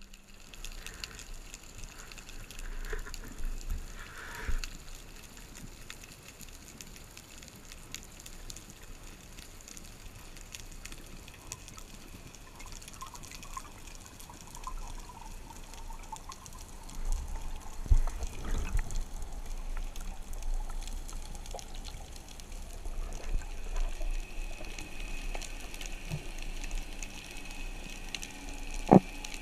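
Muffled underwater water noise and bubbling while a diver grapples with a speared fish, with scattered faint clicks and knocks and a louder thump a little past halfway. The water sound grows livelier near the end as the diver nears the surface.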